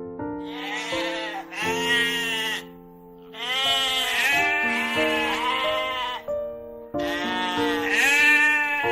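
Sheep bleating: several long, wavering bleats one after another, over background piano music.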